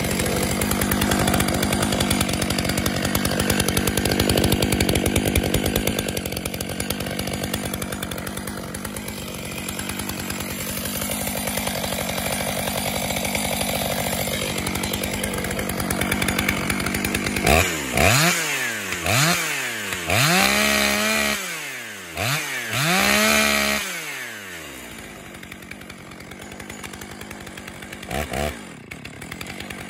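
Freshly rebuilt Stihl MS661 two-stroke chainsaw idling steadily. A little past halfway it is revved in several quick throttle blips, each rising and falling in pitch and dropping back to idle between them, with one more blip near the end.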